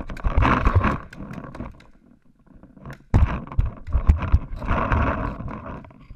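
Paintball markers firing in quick strings of sharp pops, mixed with loud shouting, in two spells: a short one at the start and a longer one from about three seconds in.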